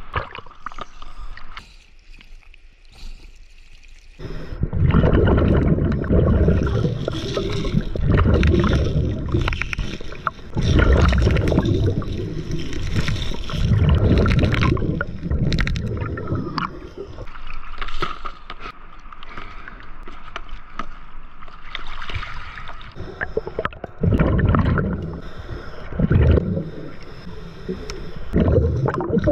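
Underwater sound of a scuba diver breathing through a regulator: exhaled bubbles gurgle out in repeated rushing bursts every two to three seconds, with a quieter stretch in the first few seconds.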